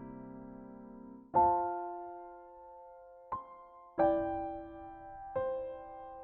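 Soft background piano music: sparse chords struck every second or so, each ringing out and fading slowly.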